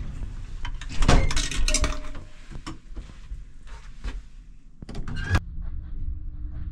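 A coin dropped into a coin-operated lift's coin box, clinking and clattering about a second in. A few sharp knocks follow about five seconds in, and then a steady low hum as the lift runs.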